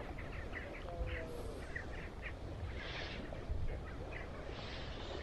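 Faint bird calls: a quick run of short chirps over the first couple of seconds, then a few scattered ones, over a low steady rumble.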